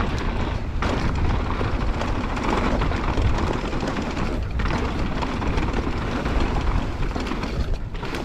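Wind rushing over the camera microphone while a Specialized Demo downhill mountain bike runs fast over loose dirt and rocks. Under the wind the knobby tyres crunch and the chain and frame rattle with constant small clicks.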